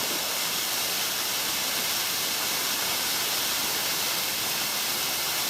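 Water of a small creek cascade running steadily over rocks, a constant even rushing hiss with no change.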